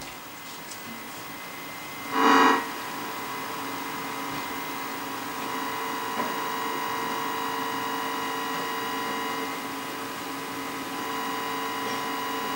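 Steady electronic hum-buzz of several tones at once from a 1960s Canadian Marconi portable vacuum-tube TV, with a short, much louder blare of the same tones about two seconds in.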